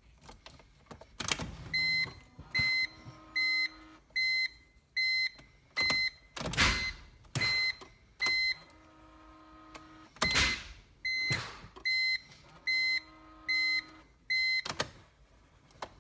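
A car's electronic warning beep sounding again and again, about one short beep every 0.8 s, on a BMW Z4 3.0 that won't start. Several brief rushing sweeps of noise break in between the beeps.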